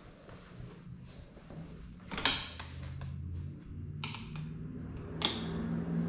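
Three sharp knocks, the loudest about two seconds in and the others near four and five seconds, over a low hum that grows louder toward the end.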